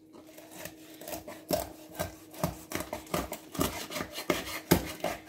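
A large knife sawing crosswise through a whole scaled fish on a wooden cutting board: a series of rasping strokes, about two or three a second, as the blade works through the scaly skin and flesh.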